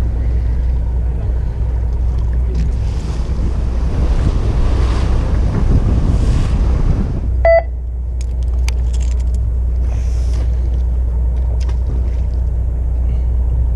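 A fishing boat's engine running with a steady low hum. A rushing hiss swells over it for a few seconds, then a short beep sounds about halfway through, followed by a scatter of light clicks.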